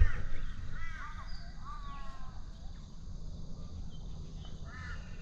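A crow cawing: several drawn-out, falling calls spread through the stretch, the last near the end, over a steady low rumble.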